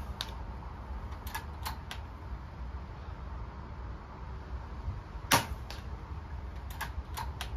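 Weihrauch HW110 PCP air rifle firing a .177 domed pellet: one sharp shot about five seconds in. A few seconds before it and again near the end come three quick lighter clicks, the action being worked to load the next pellet, over a low rumble of wind on the microphone.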